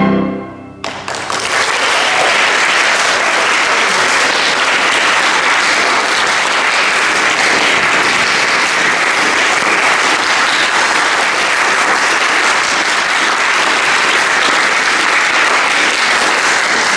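The closing chord of a chamber ensemble of pianos and strings cuts off within the first second, then an audience applauds steadily.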